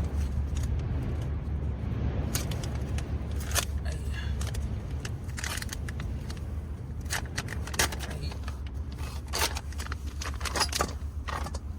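Short clinks, knocks and rustles of cooking gear and food being handled, scattered irregularly over a steady low rumble of traffic.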